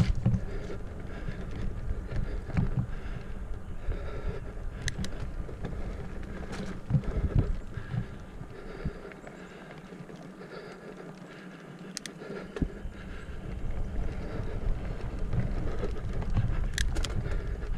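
Full-suspension mountain bike (Specialized Stumpjumper Comp 6fattie) ridden over a dirt trail: tyres rumbling over the ground with knocks and rattles from bumps, and a few sharp clicks. The rumble drops away for a quieter few seconds in the middle, then comes back.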